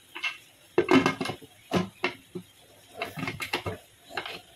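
Aluminium pressure cooker lid being put on and closed over the pot: a series of metal clanks and knocks.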